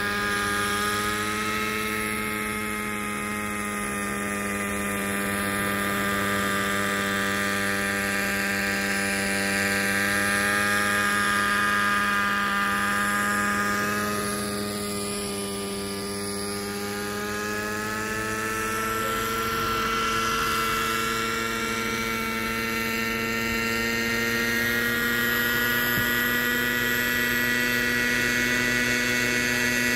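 Kyosho Concept 30 SR-X radio-controlled helicopter's small two-stroke glow engine running steadily with its rotors turning in a low hover, a continuous buzzing drone that gently rises and falls in loudness as the model moves about.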